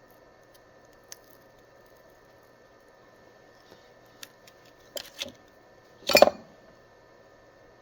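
Bench handling noises: a few light clicks and taps, then a short louder rustling clatter about six seconds in, over a faint steady hum.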